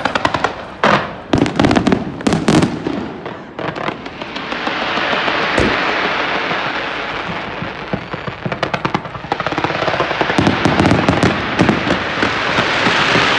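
Aerial fireworks: rapid crackling volleys and a few sharp bangs in the first three seconds, then a long hissing crackle, and another dense run of crackles from about ten seconds in.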